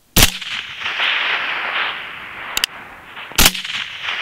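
Two rifle shots about three seconds apart at a wolf, each followed by a lingering echo; a light click comes between them.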